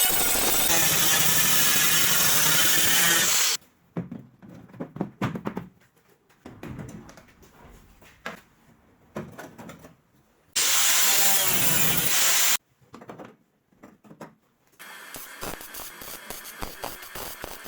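A handheld power tool running in two loud stretches, the first about three and a half seconds and the second about two seconds, each cutting off abruptly. Scattered clicks and knocks of hand work fill the gaps between them.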